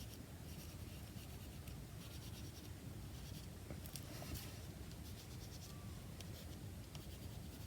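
Faint scratchy rubbing of colour being worked onto a card tag, in short irregular strokes.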